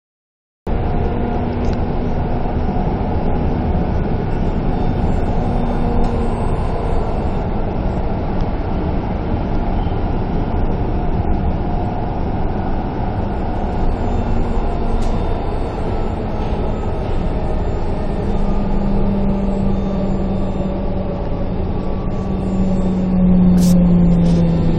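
Milan Metro Line 5 train running, heard from inside the car: a loud, steady rumble with a motor whine. Over the last several seconds the whine slowly falls in pitch as the train slows for the next station.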